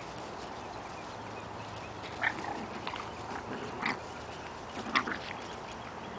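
Boston Terrier puppies yipping in play: about five short, high-pitched yips and squeals between two and five seconds in, the sharpest near five seconds.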